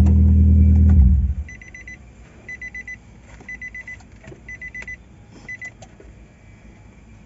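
The 2019 Nissan Almera's engine idling, running again on a newly fitted fuel pump, then switched off about a second in. Afterwards a high electronic beeper sounds in short rapid bursts about once a second, five bursts in all.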